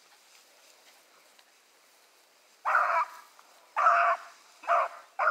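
Hunting hound baying on a rabbit's trail. After a quiet start, one long bay comes about two and a half seconds in, then two shorter ones about a second apart, and another begins at the very end.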